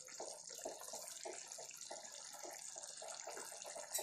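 Quail gravy simmering in a pan, faint irregular bubbling pops over a soft steady hiss, with one light knock near the end.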